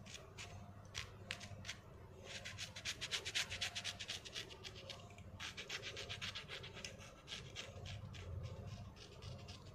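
Quick scraping strokes of a utility-knife (cutter) blade shaving thick, hardened callus skin off a heel. A few single scrapes come first, then two fast runs of about ten strokes a second, with scattered strokes after.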